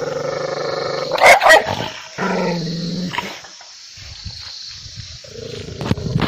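Dog growling, breaking into two loud, sharp barks about a second in, then growling again; rougher, lower growls come back near the end.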